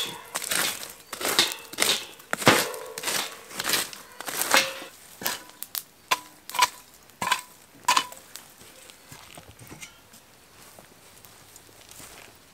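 Glowing wood embers and charcoal raked and scraped around a metal drum, a fast run of crunching, scraping strokes. Between about six and eight seconds come a few sharper metallic clinks with a short ring, and the last few seconds are much quieter.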